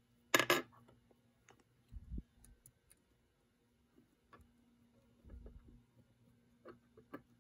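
Faint small clicks and taps of metal tweezers and small plastic track bumper pieces being handled on a desktop. There is one brief louder rustle about half a second in, and a couple of soft thumps.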